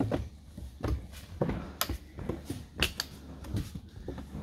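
Footsteps and trekking-pole tips knocking on wooden stair steps during a steep climb, an uneven sharp tap about every half second.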